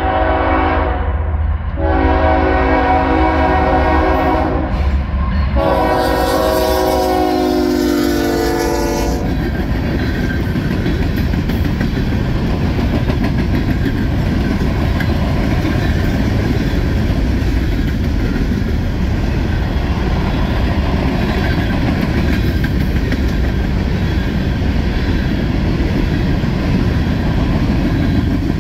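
Diesel locomotive air horn sounding three blasts of several notes at once, the last dropping in pitch as the locomotive passes. A freight train then rolls by with a steady rumble and the clatter of wheels on rail joints.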